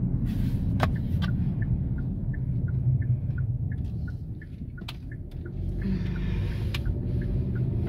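Car cabin with a steady low engine and road rumble that eases off near the middle and picks up again as the car turns and pulls away, while the turn signal ticks about three times a second. A few sharper clicks stand out over it.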